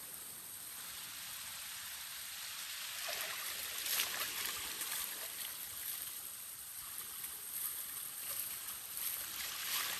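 Hands scooping and splashing water in a shallow stream, a soft trickling and sloshing that grows livelier after about three seconds, with a few sharper splashes.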